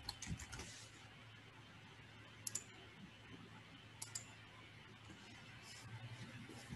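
Near silence: faint room tone with a few short, faint clicks spread through it.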